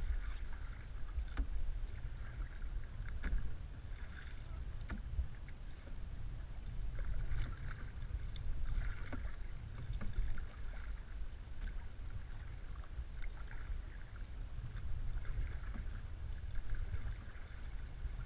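Canoe paddles dipping and pulling through the water, a splash every second or two, over a steady low rumble.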